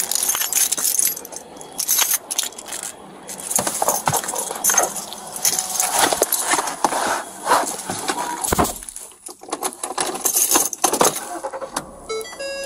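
Close rustling, clicking and jangling of a police officer's gear and body-worn camera rubbing against clothing as he moves in a patrol car's driver's seat, with a dull thud about two-thirds of the way in.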